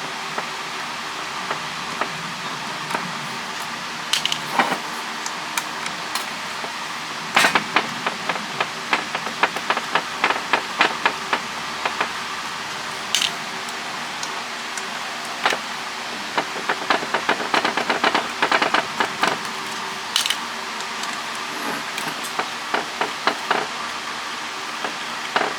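Hand tools working on a satellite LNB's aluminium housing: irregular metal clicks, taps and clinks, coming in busy clusters, over a steady low hum.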